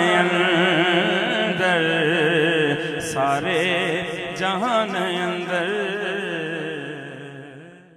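A man singing a Punjabi naat through a microphone, drawing out a long, wavering, ornamented line over a steady held drone. It fades out near the end.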